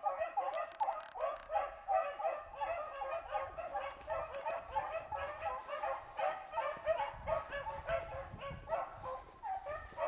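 A pack of beagles, six-month-old pups among them, baying in chorus as they run a rabbit's track: many short overlapping bawls and yips with no break.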